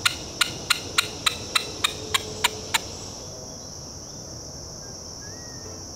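Hand-held squirrel call worked in a quick, even series of about ten sharp barks, roughly three a second, stopping a little under three seconds in. A steady high drone of crickets or other insects runs underneath.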